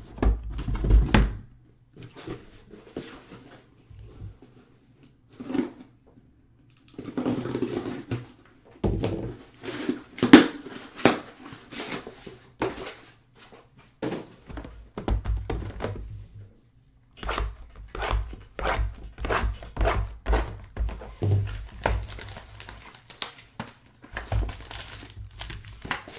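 Trading card boxes being unwrapped and opened by hand: plastic wrap crinkling and tearing, with knocks of cardboard against the table. The handling comes in irregular bunches with short quiet gaps between them.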